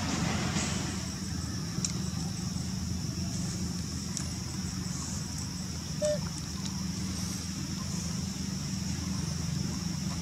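Steady outdoor background: a low rumble with a steady high-pitched hiss above it, and one brief short squeak about six seconds in.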